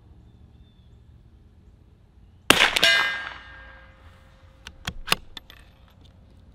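A single shot from a CZ Varmint MTR .22 LR bolt-action rifle about two and a half seconds in: a sharp crack with a metallic ring that dies away over about a second. About two seconds later comes a quick run of clicks, the bolt being worked to clear the spent case.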